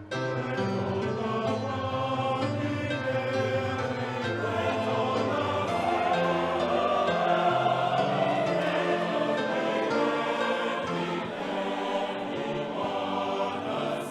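A choir singing in several voice parts, with long held notes.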